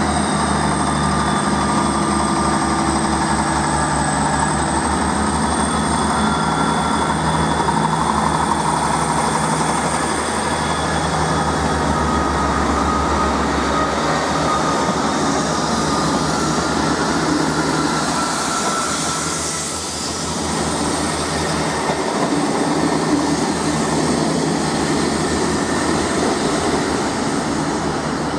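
Class 158 Express Sprinter diesel multiple unit pulling away, its underfloor diesel engine droning under load with a thin high whine that fades after about ten seconds. About twenty seconds in, another Class 158 is heard running toward the listener.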